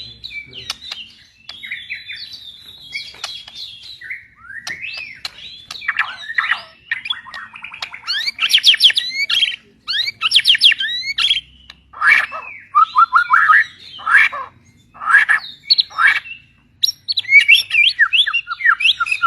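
A white murai, a shama songbird, singing a long, varied song of rapid whistled phrases and quick sweeping notes with a few sharp clicks. The song comes in loud bursts with short pauses between them, louder from about halfway through.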